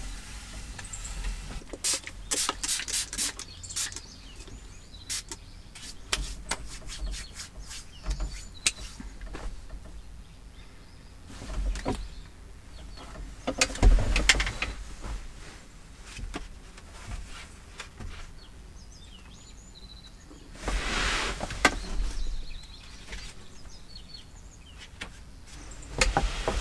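Small handling noises of a man tidying a camper: taps, clicks and rustles of cloth and paper, with a louder knock about halfway through and a longer rustle of about a second and a half near the end. Birds chirp faintly outside.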